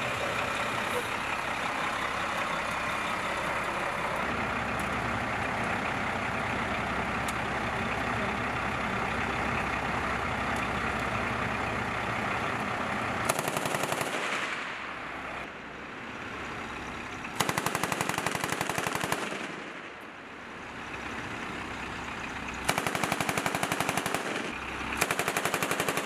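A heavy military truck's diesel engine runs steadily. About halfway through, an M2A1 .50-calibre heavy machine gun mounted on the truck fires four bursts of about one to two seconds each, the last still going at the end.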